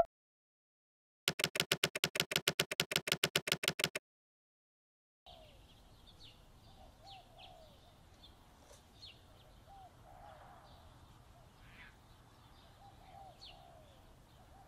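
Faint birdsong ambience from about five seconds in: scattered short chirps of small birds over a quiet background. Earlier, a little over a second in, a brief rapid rattling of about ten pulses a second lasts for a few seconds.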